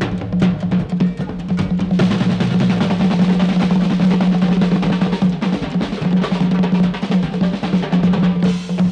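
Jazz-rock fusion band playing live, with the drum kit prominent: rapid drum hits, then from about two seconds in a continuous wash of rolls and cymbals, over a held low note.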